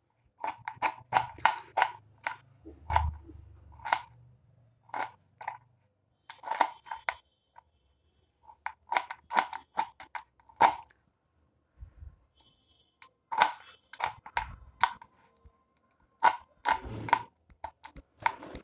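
Knife chopping a peeled beetroot on a wooden cutting board: sharp chops against the board in quick runs of several strokes, with short pauses between runs.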